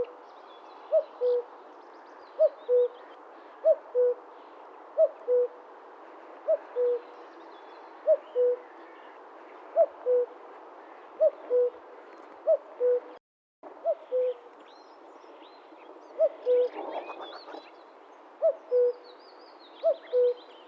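Male common cuckoo singing its "cuck-oo" song over and over, each call a higher note dropping to a lower one, about one call every second and a half. Faint chirps of other birds sound behind it.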